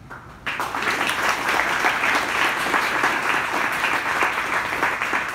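Audience applauding, a dense clapping that starts about half a second in and holds steady.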